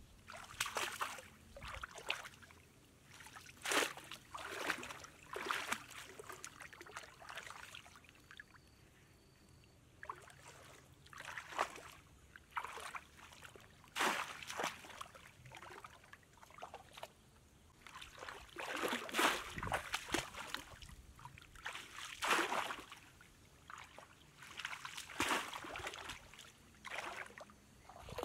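Repeated splashing and sloshing of shallow muddy water as a bamboo plunge-basket fish trap is thrust down into it, at irregular intervals of a second or two, with quieter trickling in between.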